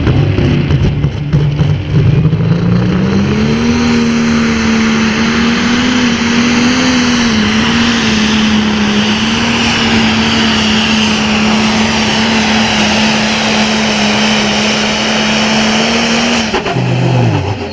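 Super farm class pulling tractor's diesel engine at full throttle during a pull. It revs up over the first few seconds, holds a steady high pitch, then winds down sharply near the end.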